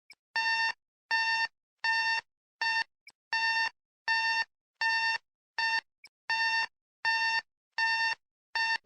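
Electronic alarm clock beeping: about eleven short, evenly pitched beeps, a little over one a second. At the very end a sudden loud crash cuts in.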